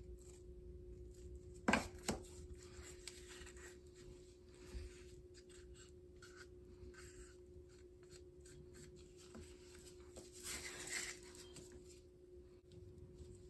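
Wooden popsicle stick spreading and scraping wet tile grout across a mosaic: faint scraping and rubbing, with two sharp knocks about two seconds in and a longer rub a little before the end.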